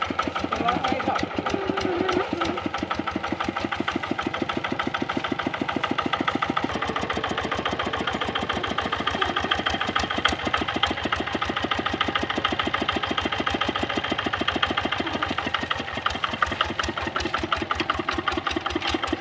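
Kubota RD65 single-cylinder diesel engine of a hand tractor running steadily, its firing strokes coming as a rapid, even chugging.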